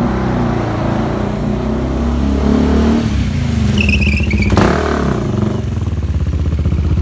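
Sport motorcycle engine running close by at idle, with a steady, even rhythm. A short sharp click comes about four and a half seconds in, just after a few brief high chirps.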